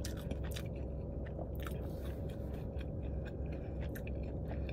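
Close-up chewing of sauce-coated fried chicken crispers, a run of short irregular wet mouth clicks, over a steady low hum.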